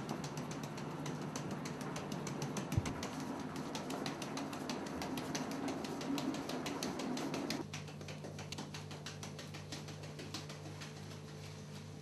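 Flour being sifted through a large round hand sieve that is shaken side to side, the rim knocking against the hands in quick, even taps. A little over halfway through, the taps become sparser and quieter.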